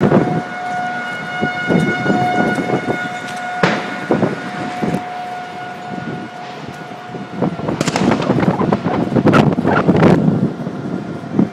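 A steady siren tone sounding over rumbling, gusting storm noise; the tone stops a little after halfway, and loud rushing surges follow.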